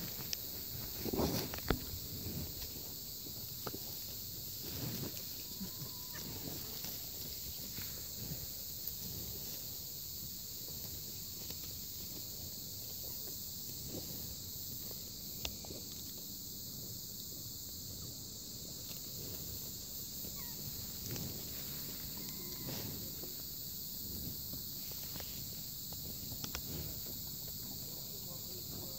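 A bull cropping and chewing grass close by, with irregular tearing and crunching sounds and a brief louder noise about a second and a half in, over a steady high chorus of insects.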